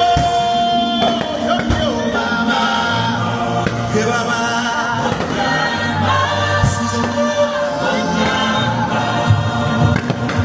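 Music with a choir singing, full and sustained throughout.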